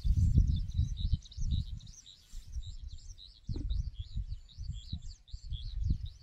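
Birds chirping constantly in quick, repeated high notes, over a louder, uneven low rumble that comes and goes.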